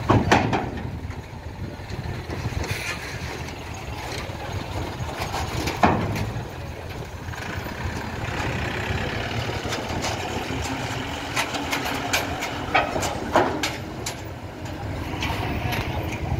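A bus and a heavy truck drive slowly off a ferry across a steel pontoon ramp, their engines rumbling at low revs. Several sharp knocks break the rumble: a loud one at the start, one about six seconds in, and a few more near the end.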